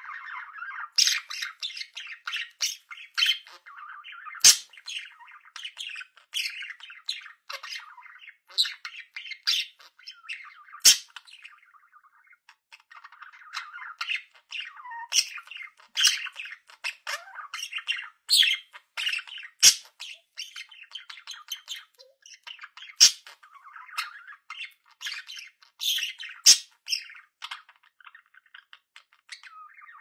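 Budgerigars warbling and chattering without a break, laced with many short, sharp chirps and squawks; the chatter eases off briefly a little before halfway.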